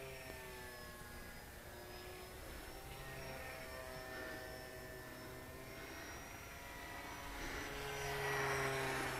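Radio-controlled La-5FN scale model fighter flying overhead: its motor and propeller give a steady drone that grows louder near the end as the plane comes closer.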